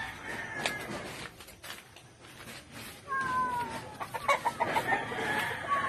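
Chickens calling: a drawn-out falling call about three seconds in, then a quick run of clucks and more short calls near the end.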